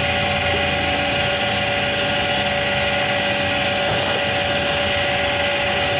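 Electric pipe threading machine running steadily, its motor and gear drive turning a pipe through the die head as a thread is cut, with a steady whine over the even mechanical noise.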